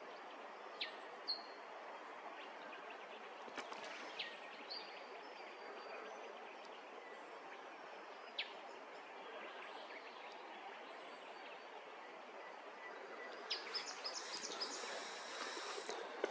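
Steady outdoor background hiss with a few short, high bird chirps scattered through it, and a quicker run of bird calls about three-quarters of the way in.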